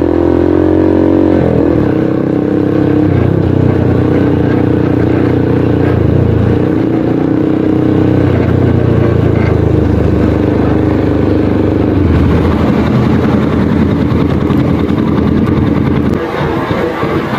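Motorcycle engine running loud through an aftermarket exhaust silencer. It revs up at the start, then holds at a raised, slightly wavering speed, and eases off a little near the end.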